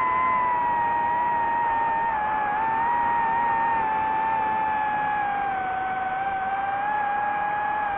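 DJI FPV drone's motors and propellers whining steadily in flight, the pitch easing down a little around the middle and creeping back up near the end.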